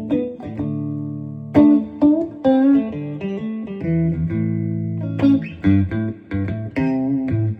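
Guitar playing an instrumental passage: chords and single plucked notes ringing, with a few notes sliding in pitch.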